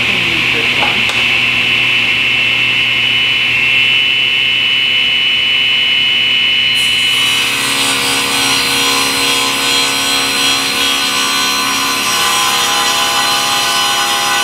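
Table saw running with its blade spinning freely, then, from about halfway in, ripping a wooden plank fed along the fence, the cutting adding a loud hiss over the motor's steady hum.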